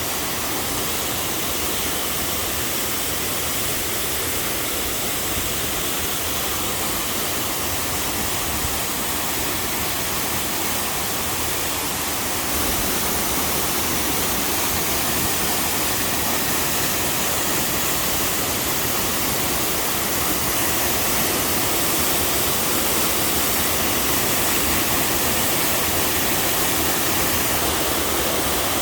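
Mountain-valley waterfall pouring steadily, a dense, even rush of falling water, a little louder from about twelve seconds in.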